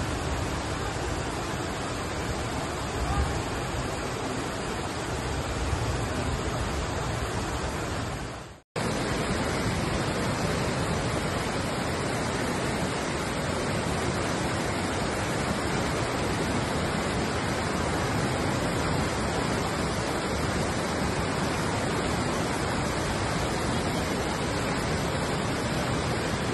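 Floodwater rushing through a street in heavy rain: a loud, steady rushing noise. It cuts out for an instant about eight and a half seconds in, then carries on unchanged.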